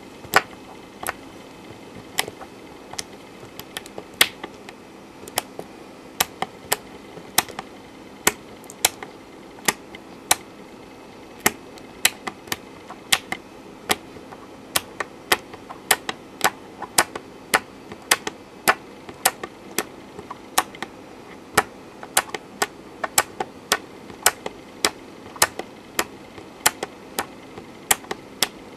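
A small toggle switch flicked back and forth over and over, sharp irregular clicks about two a second, often in quick pairs: the hand-operated clock single-stepping a Z80 CPU.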